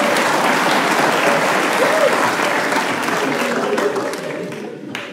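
Audience applauding, with a few voices mixed in. The clapping fades away over the last second or so.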